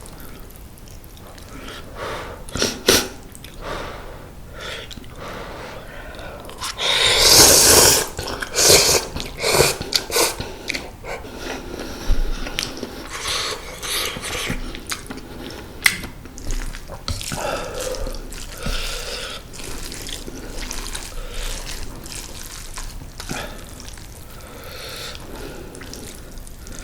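Close-miked eating of mala tang noodles: slurping noodles, with a long loud slurp about seven seconds in and shorter slurps after it, amid wet chewing and a few sharp clicks.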